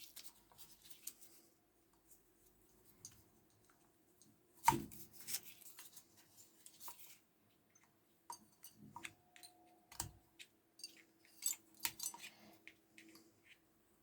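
Scattered light clicks and metal knocks from hand work fitting the cylinder over the piston of a Stihl 020T chainsaw, with one sharper knock about five seconds in.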